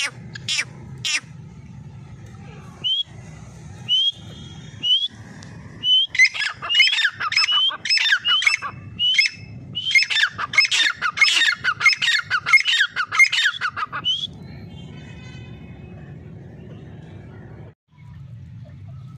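Grey francolins calling. A few sharp calls come first, then single rising notes about a second apart. From about six to fourteen seconds in comes a fast, loud run of repeated calls, which then stops.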